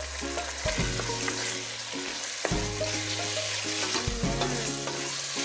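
Raw chicken pieces sizzling in hot oil with sautéed garlic in a stainless steel pot, just added and being stirred with a wooden spatula, with a few light knocks of the spatula against the pot.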